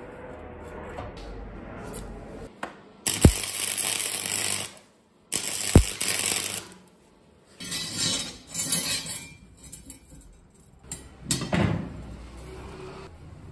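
Arc welding a bent steel rod leg to a flat steel bar: the arc crackles and hisses in bursts, two of about a second and a half each, then several shorter ones.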